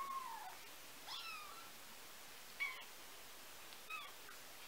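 19-day-old kittens mewing: four short, thin, high calls a second or so apart, the first sliding down in pitch.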